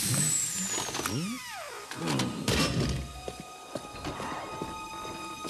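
Film sound effects over music: a long falling whistle-like glide in the first second and a half, a couple of sharp knocks about two seconds in, then held music notes.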